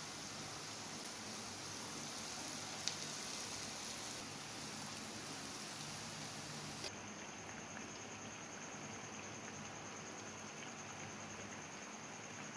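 Potato tikkis sizzling in hot frying oil: a steady, even crackling hiss, with a single sharp click about three seconds in.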